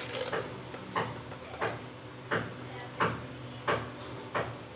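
A steady run of short scraping strokes, about three every two seconds.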